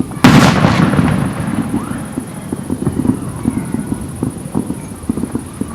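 Fireworks: a single loud firework bang about a quarter second in, dying away over about a second, over a continuing scatter of small firecracker pops and crackles.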